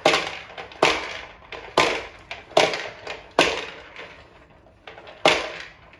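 Child's push popper toy being worked back and forth on the floor, its plastic balls clattering against the clear dome in loud bursts about once a second, six in all with a short pause before the last.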